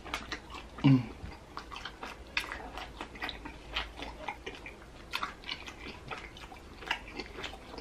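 Close-miked mouth sounds of a person eating Dungeness crab leg meat dipped in sauce: wet chewing and lip-smacking as a string of short clicks, with a short grunt about a second in.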